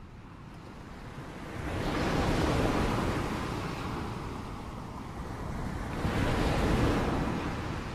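Sea waves washing in, two swells of surf about four seconds apart.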